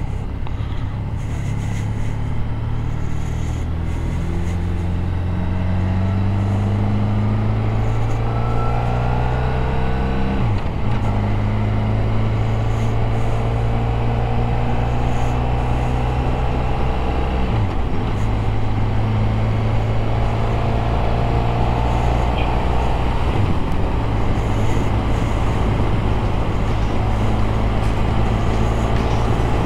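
Motorcycle engine accelerating up through the gears, its pitch rising in each gear, with gear changes about ten, eighteen and twenty-three seconds in, then running at a steady cruise. A constant rush of wind and road noise lies under it.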